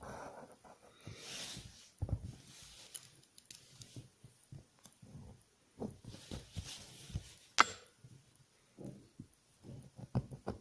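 A transparent plastic ruler being laid and shifted on a paper workbook page while lines are drawn along it: soft scrapes and light knocks, with one sharp click about three-quarters of the way through.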